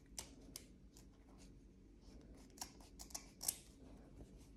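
Dull scissors snipping through the ends of a burlap-and-white fabric ribbon, a series of faint, irregular snips.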